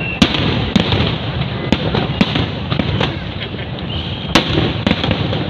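Fireworks display: a quick, irregular run of sharp bangs, roughly one every half second, over continuous crackling. The loudest bang comes right at the start.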